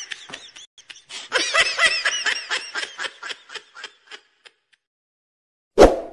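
A man laughing hard in quick, high-pitched bursts that die away about four seconds in. A short, loud thump comes near the end.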